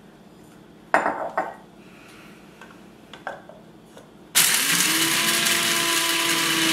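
Electric coffee grinder grinding raw sunflower seeds into flour. It switches on about four seconds in and runs steadily, its pitch rising briefly as it spins up. About a second in there is a sharp glass clink and a clatter from the seeds and bowl.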